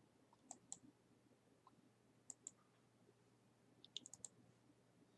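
Faint clicks of a computer mouse: a pair of clicks about half a second in, another pair a little over two seconds in, then a quick run of several clicks about four seconds in.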